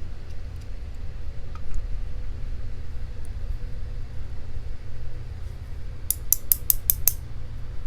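A quick run of about six small sharp metallic clicks near the end, from metal tweezers handling a tiny lock pin while a padlock is re-pinned, over a steady low hum.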